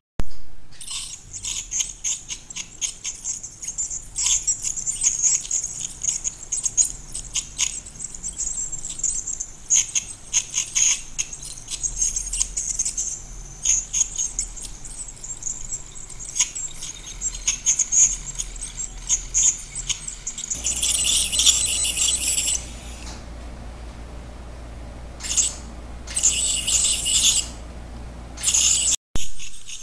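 Piezoelectric ultrasonic dental scaler (Baolai B5) with its tip working along a dog's teeth to chip off tartar: a high-pitched hissing chatter full of small clicks. In the last third it comes in separate bursts.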